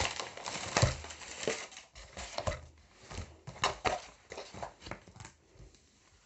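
Crinkling and crackling of a rolled diamond painting canvas and its sheets being unrolled and flattened by hand, a quick run of rustles that thins out near the end.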